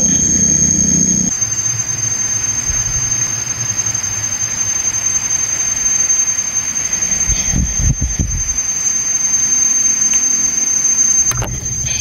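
A steady high-pitched whine over an even hiss, with a short low rumble about eight seconds in.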